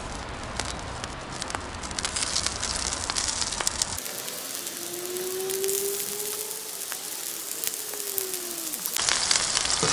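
Hot oil sizzling and crackling on a steel saj griddle made from a harrow disc as turkey cutlets are laid in to fry. A faint drawn-out whining tone rises and falls about halfway through.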